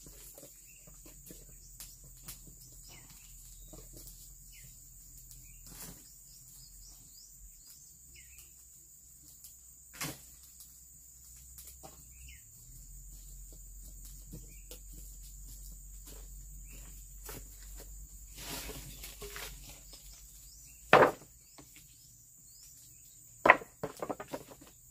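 Pieces of scrap building timber knocking together as they are handled and stacked: scattered light knocks, one sharper knock about ten seconds in, and two loud sharp knocks with a few smaller clatters near the end. A steady high insect drone runs underneath.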